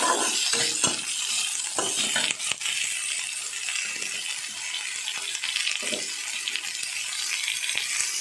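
Chopped onions, garlic and green chilli sizzling in hot oil in a kadai, with a steady hiss. A metal spatula scrapes and clinks against the pan now and then as they are stirred.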